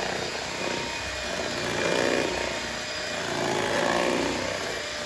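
Electric hand mixer running on low speed, its beaters churning flour into cake batter in a stainless steel bowl; the motor's sound swells and ebbs every second or two as the beaters move through the mix.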